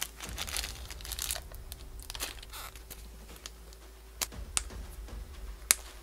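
Thin clear plastic bags crinkling and rustling as they are peeled off a 1/6 scale action figure's legs and boots, mostly in the first half. A few sharp clicks follow in the second half, the loudest just before the end.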